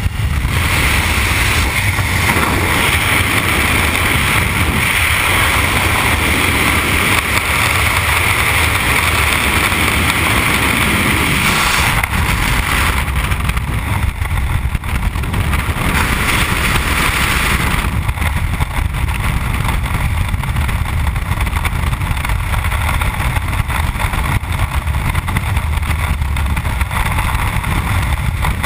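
Loud, steady wind rush buffeting a body-mounted camera's microphone in skydiving freefall. It starts abruptly at the exit from the aircraft, and its higher hiss eases off about thirteen seconds in.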